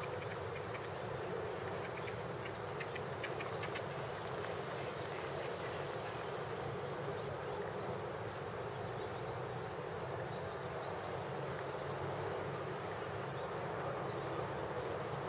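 Steady, even buzzing drone with no distinct events.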